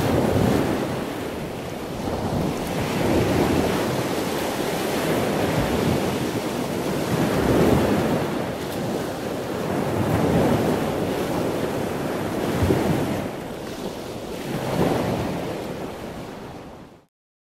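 Sea waves washing in, a steady rush of water noise that swells and eases every two to three seconds, then cuts off suddenly near the end.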